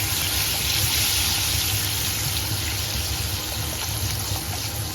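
Water poured into a pan of spice paste frying in hot oil, with a steady hiss and sizzle as it hits the hot masala.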